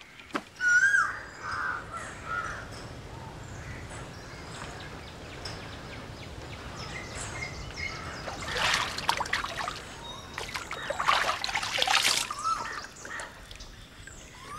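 Crows cawing a few times in the first seconds and again near the end. In the middle come two bursts of water splashing, each a second or more long, as a person bathing in a pond throws water over herself.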